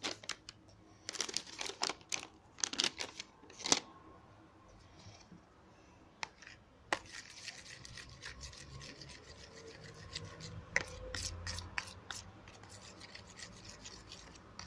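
Metal spoon stirring dish soap and baking soda in a plastic tub, scraping and knocking against the plastic. Sharp clicks and scrapes come in the first few seconds, then a steadier scraping rub.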